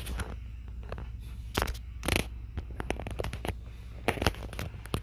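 A run of irregular scrapes and sharp clicks over a steady low hum.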